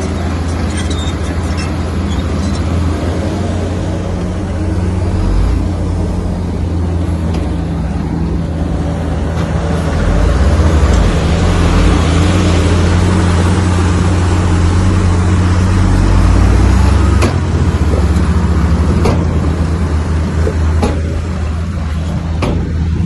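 Komatsu bulldozer's diesel engine working under load, louder and rougher for several seconds in the middle, with a few sharp metallic clanks in the last few seconds.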